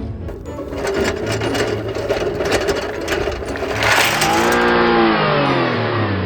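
A small motor-driven power tool running with a fast, rapid rattle, then winding down with a falling whine over the last two seconds.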